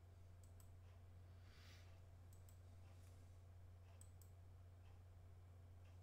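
Near silence: a steady low electrical hum, with faint computer mouse clicks in quick pairs, three times, and a brief faint hiss.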